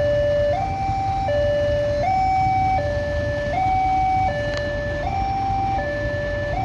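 Railway level-crossing warning siren sounding a steady two-tone hi-lo alternation, about three-quarters of a second on each pitch, warning that a train is approaching. A steady low rumble runs underneath.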